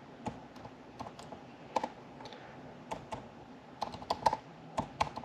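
Computer keyboard typing: scattered key presses at an irregular pace, some alone and some in quick runs of two or three.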